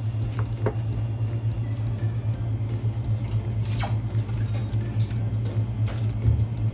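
A steady low hum, with a few light clicks and a short tap near four seconds as sashimi slices and a shiso leaf are handled into a plastic serving tray.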